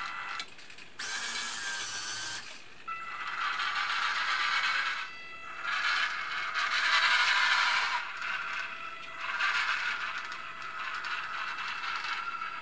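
Small electric motors and gearing of a Robbe Linde H50 RC model forklift whirring in repeated stop-start bursts as it manoeuvres and lifts a pallet. There is a brief, louder, hissing scrape about a second in.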